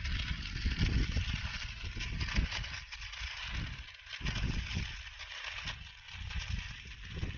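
Stick (SMAW) welding arc crackling steadily as an electrode rod burns along a bead on steel angle, with an uneven low rumble underneath.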